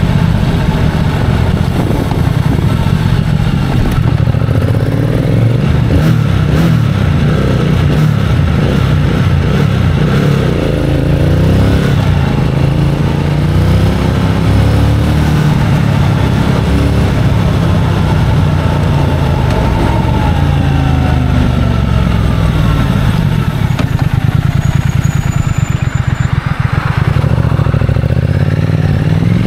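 Triumph Speed Twin 1200's parallel-twin engine heard from onboard while riding. Several times it accelerates, its pitch rising, and in between it drops back off the throttle. Near the end it slows with a stuttering note before pulling away again.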